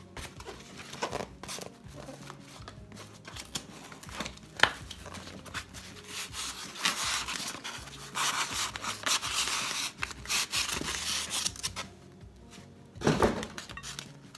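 Cardboard packaging being opened by hand: a knife blade scraping and slitting the box, with scattered scrapes and one sharp click. About eight seconds in, a styrofoam block is slid out of the cardboard box with a long rubbing scrape lasting several seconds, then a short burst of handling noise near the end.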